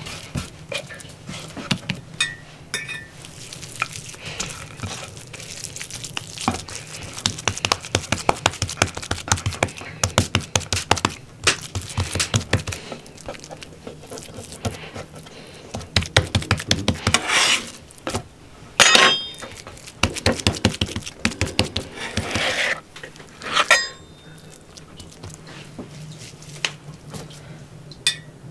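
Hands slapping and pressing raw minced meat into patties on a wooden board: rapid runs of slaps, several a second, in bursts with short pauses between.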